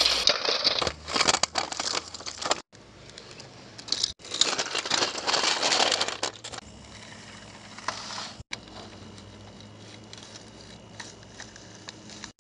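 Grass rustling and crackling against the phone's microphone in loud bursts, broken off by several abrupt cuts, then a fainter steady noise with a thin high tone.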